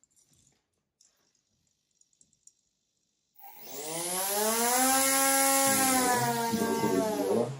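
Small brushless motor spinning a propeller, driven through an electronic speed controller: a loud whine that starts about three seconds in, rises in pitch as it spins up, holds, then stops abruptly near the end. It is a test run to check the spin direction after two of the motor's three wires were swapped.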